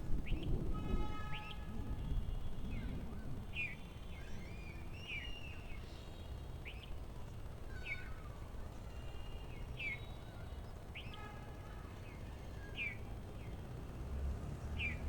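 Bulbul singing: short, sharp, downward-sweeping notes repeated every second or two over a low steady background rumble.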